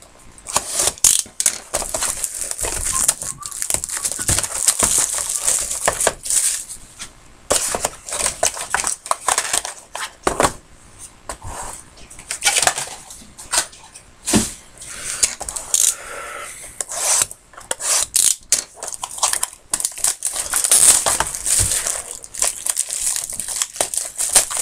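A Topps Triple Threads hobby box being opened by hand: wrapping tears and crinkles, and the cardboard box and its inner packaging scrape and click in a quick, irregular run of handling noises.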